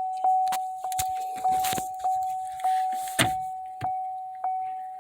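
2012 Buick Verano's warning chime repeating steadily, a single-pitched ding that fades after each strike, about one and a half times a second, with a few sharp clicks of handling around the shifter in between.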